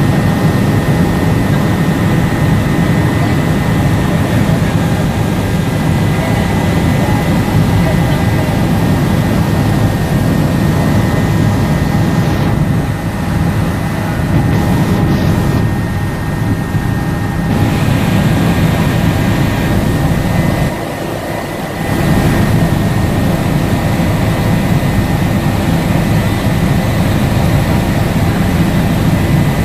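Helicopter in flight, heard from inside the cabin: a loud, steady drone of engine and rotor with a steady high whine. It drops briefly about two-thirds of the way through.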